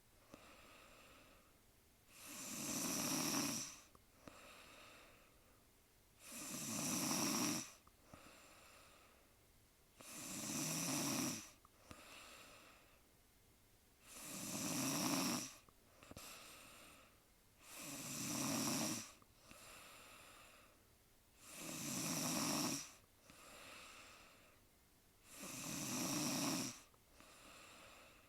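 A sleeping woman snoring in a steady rhythm, one loud snore about every four seconds, each followed by a softer, shorter breath.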